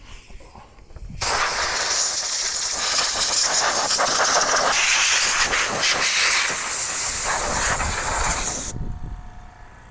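Compressed-air blow gun blowing water off a freshly washed CRT tube and chassis: a loud, steady hiss that starts suddenly about a second in and cuts off near the end.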